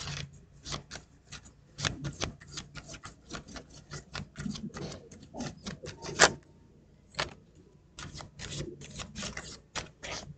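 A deck of tarot cards being shuffled by hand: fast runs of card clicks and flicks, with a short pause a little after six seconds. The loudest sound is one sharp snap about six seconds in.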